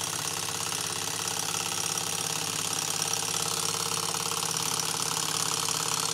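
PM Research Peanut Rider hot-air engine running on its first run, its linkage and flywheel making a fast, even mechanical clatter that grows slightly louder. The owner judges it a good runner.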